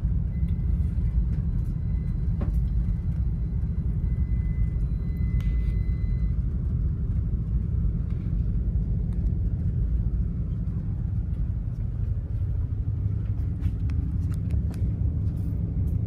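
Steady low rumble aboard a container ship under way. A faint high steady tone sounds for about six seconds near the start.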